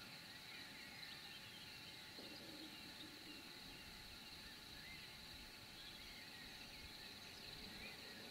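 Near silence: faint outdoor evening ambience, with a steady high-pitched hiss and a few faint distant chirps.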